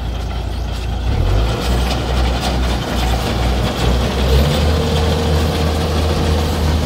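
Tracked rice combine harvester's diesel engine running steadily close by, growing louder about a second in. A thin steady whine joins it about four and a half seconds in.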